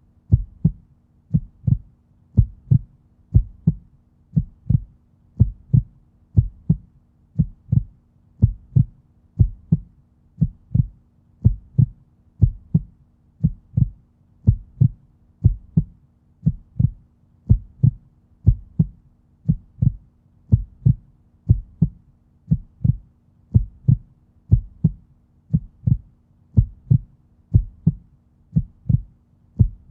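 Human heartbeat: a steady, even rhythm of paired low thumps (lub-dub), about one beat a second, over a faint steady hum.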